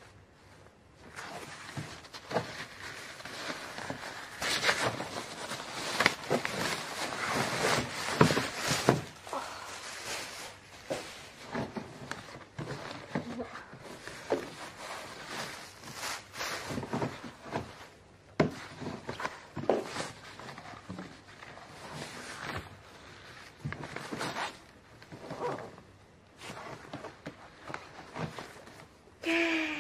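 Cloth and suitcase fabric rustling and scraping in irregular bursts, with small knocks, as hands pull at a winter shirt jammed inside the suitcase. The shirt is snagged in the zipper, which is why the suitcase's lock would not open.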